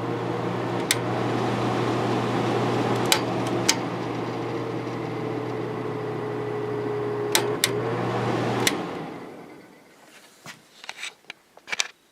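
Holmes 5200 BTU window air conditioner's McMillan fan motor running with a steady hum and a steady whine, broken by a few sharp clicks. Near the end the whine briefly rises, then the motor is switched off and the sound winds down and fades over about a second.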